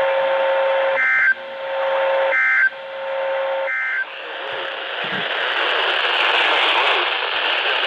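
Emergency Alert System end-of-message signal: three short bursts of screechy SAME data tones about a second and a half apart, with a steady tone between them. From about four seconds in, even radio static hiss takes over.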